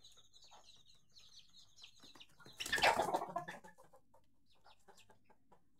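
Young Aseel fighter chicks peeping and chirping in short repeated calls, with a brief louder burst of noise about three seconds in, then fainter scattered peeps.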